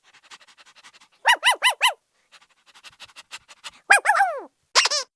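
A small dog or puppy yipping: four quick high yips, then a longer yelp that falls in pitch, and one more yip near the end, with faint rapid ticking in between.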